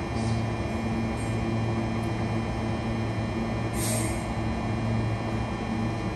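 Electric suburban train standing at the platform, its onboard equipment giving a steady low hum, with a short hiss of air about four seconds in.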